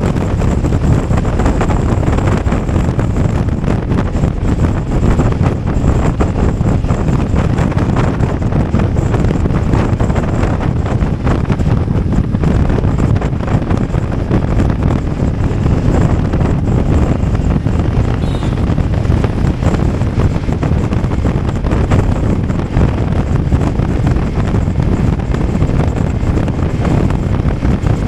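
Steady wind rush on the microphone of a BMW F 850 GS motorcycle being ridden, with engine and road noise underneath.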